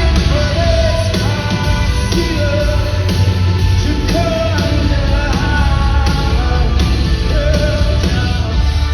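Rock band playing live, with a singer's voice over heavy bass.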